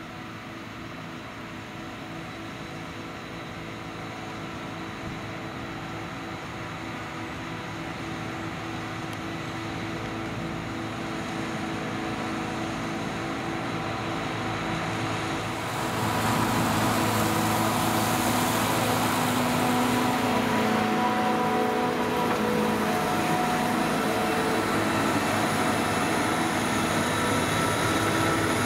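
Claas Jaguar 850 forage harvester running and chopping whole-crop silage, with a tractor and trailer running alongside. The steady machine hum grows gradually louder as they approach, then turns abruptly louder and closer about 16 seconds in.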